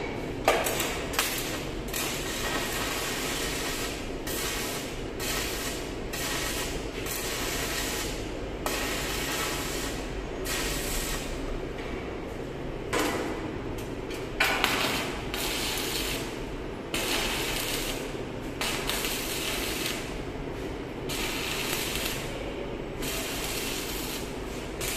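Electric arc welding on a steel railing post: the arc hisses steadily in runs of a few seconds, stopping and restarting several times as the welder works along the joint.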